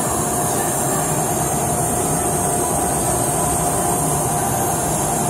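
Amada Vipros 255 CNC turret punch press running: a steady machine noise with a constant mid-pitched whine and a high hiss, and no separate strikes.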